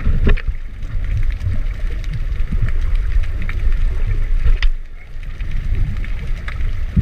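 Muffled underwater noise picked up by a camera held below the surface: a steady low rumble of moving water with scattered small clicks and crackles.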